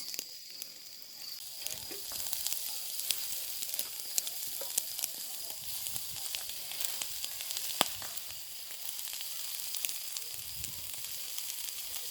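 Kebab sizzling as it grills, a steady hiss broken by frequent sharp crackles and pops of spitting fat, one louder pop near the middle.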